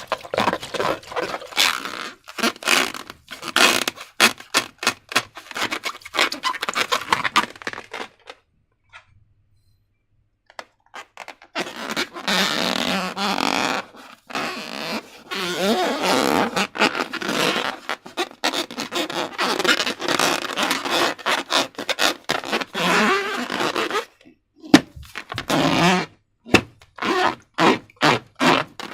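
Slime squished by hand with sticky crackling clicks, then a short pause. Next comes a long, continuous sputtering squelch with a wavering pitch, lasting about twelve seconds, followed by more crackling squishes near the end.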